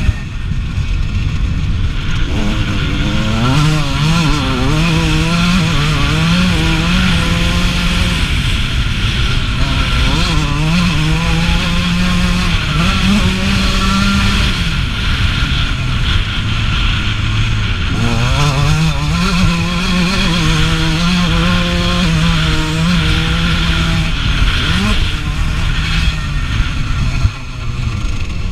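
1989 Suzuki RM125's two-stroke single-cylinder motocross engine ridden hard, revving up and easing off again and again, its pitch rising and falling in repeated sweeps.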